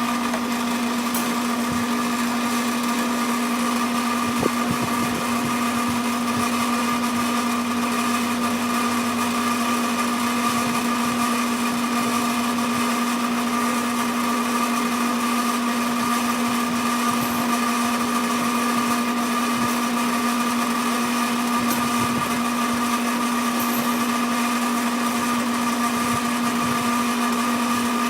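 Sidney lathe running at a constant speed with a steady whine, turning the rod that winds resistance wire into a coil. There is a faint click about four and a half seconds in.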